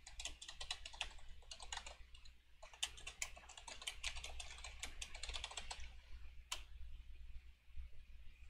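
Quick, irregular typing and clicking on a computer keyboard, faint, thinning out after about six seconds to a single click.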